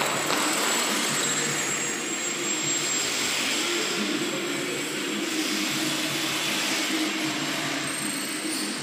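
Electric motors and propellers of several small indoor RC foam planes buzzing steadily as they fly around the hall.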